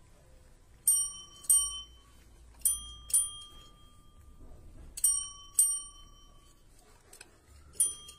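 Desk service bells dinging seven times, mostly in quick pairs about half a second apart, each ding ringing out briefly.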